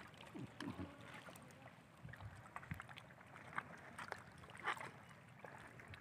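Faint sea water lapping at the shore, with scattered light clicks and taps from handling gear.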